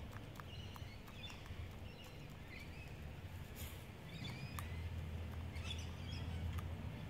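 Australian brush-turkey pecking in loose mulch, making small irregular clicks and rustles. Small birds chirp in the background over a low steady hum.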